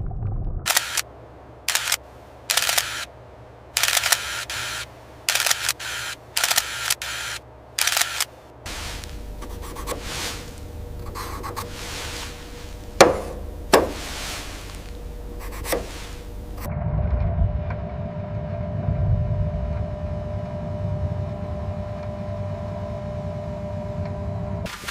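A run of about ten short, sharp clicking bursts, then a noisier stretch with two loud clicks, then a steady machine hum with a whine in it.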